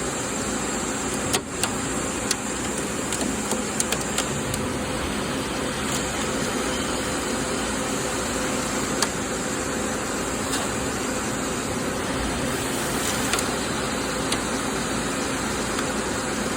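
CNC lathe turning a stainless steel (SUS316) part, coolant spraying in a steady hiss under the machine's hum, with scattered sharp ticks through it.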